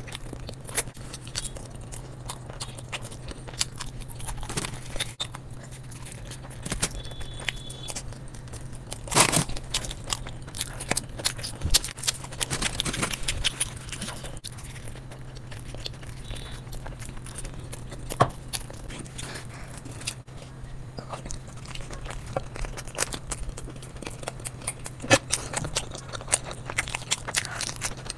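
Close-miked eating by hand: chewing, wet mouth smacks and finger-sucking, with scattered sharp crackles and rustles, over a steady low hum.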